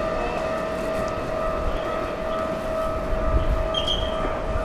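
A steady high-pitched tone held without a break, over the low rumble of a Keikyu electric train.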